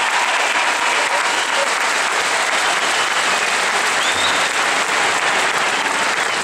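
Large arena crowd applauding steadily, a dense wash of many hands clapping.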